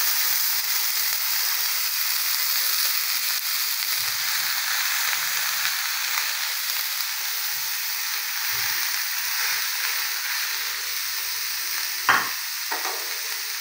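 Diced onions sizzling in hot oil in a stainless steel frying pan as they are scraped off a plate into it with a silicone spatula: a steady hiss. A single sharp knock about twelve seconds in.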